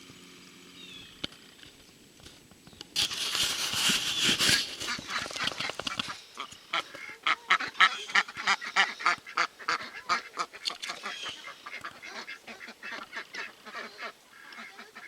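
A flock of domestic ducks starts quacking about three seconds in. The calls are loudest at first, then keep going as a rapid run of quacks.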